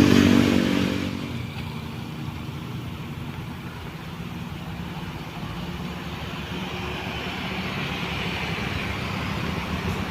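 A bus's diesel engine passing close by, loud for about a second and then falling away, followed by a steady low engine rumble from traffic on the road.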